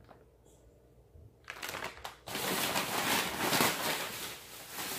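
Plastic bags rustling and crinkling as someone rummages through shopping. It is quiet at first, with a few soft handling knocks about a second and a half in, then a couple of seconds of continuous crinkling.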